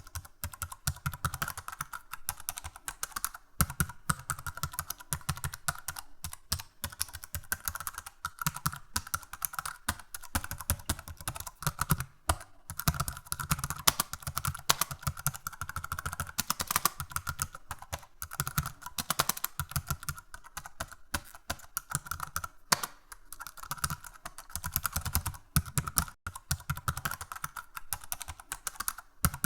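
Rapid, continuous typing on a computer keyboard: a dense run of key clicks with a few brief pauses.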